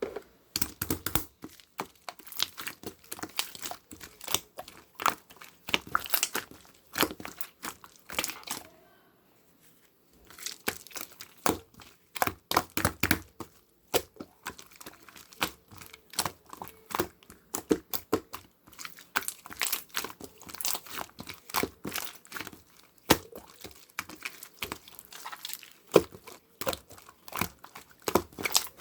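Slime being pressed, stretched and folded by hand, giving rapid irregular crackling and popping clicks in bursts, with a brief pause about nine seconds in.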